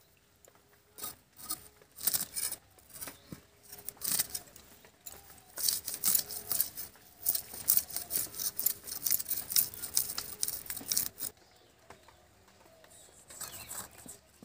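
A blade cutting and scraping a fresh rohu fish: quick, irregular scraping strokes in bunches, stopping a few seconds before the end.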